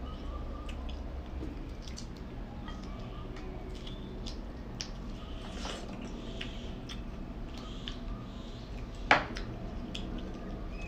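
Small clicks and soft squishing of fresh longans being cracked open and peeled by fingers, with one sharper crack near the end.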